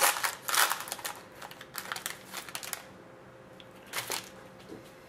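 Foil card-pack wrapper crinkling as it is torn open and the cards are slid out: sharp crackles in the first second, more through the middle, and one more about four seconds in.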